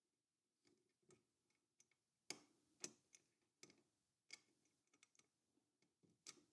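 Faint, irregular clicks and taps of small metal parts being handled: a limit switch's T-nut being twisted and seated in the engraver's frame rail slot. The two loudest clicks fall in the middle.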